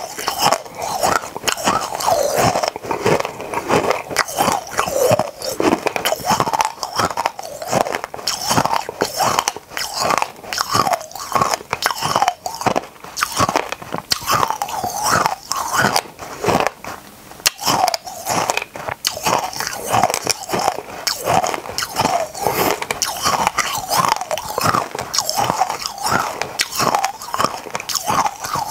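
Close-miked crunching and chewing of colourful mini candies: a dense, irregular run of sharp crunches with no pause.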